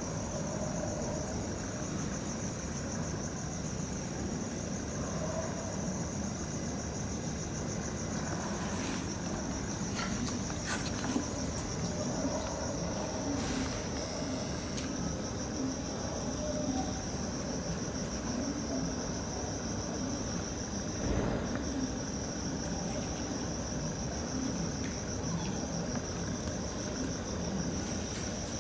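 Crickets chirping in a steady, fast high trill, over a constant low background rumble, with a few brief ticks about ten seconds in.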